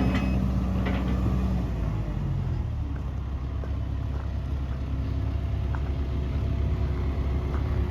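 Case CX240B excavator's diesel engine running steadily, its pitch dropping and settling lower about two seconds in.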